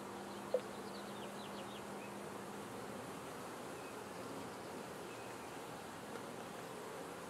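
Honeybees buzzing over an open hive, a steady hum, with one bee's buzz close by for the first three seconds. A brief sharp knock about half a second in.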